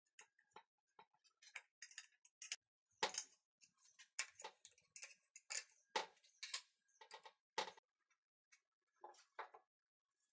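Irregular clicks, clinks and knocks of steel parts being handled as red wheels are fitted to a steel square-tube frame, with a few heavier, deeper knocks as the frame is moved about on the workbench.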